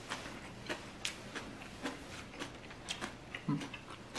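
A person chewing a mouthful of toast and vegetable salad close to the microphone: irregular crisp clicks and crunches, a few each second.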